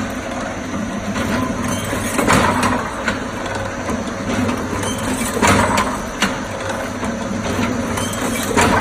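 Automatic clothes-hanger molding machine running with a steady motor hum. Every three seconds or so a louder surge with clicks marks each machine cycle.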